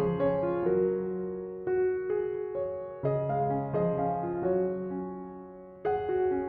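Background piano music: a gentle melody of struck notes and chords over held bass notes.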